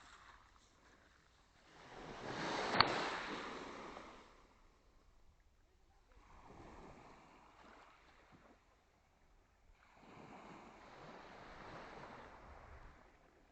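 Small sea waves washing onto the shore in calm water, three swells of surf a few seconds apart, the first the loudest. A single sharp click about three seconds in.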